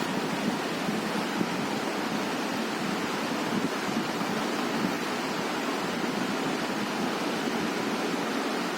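Steady, even rushing hiss that does not change.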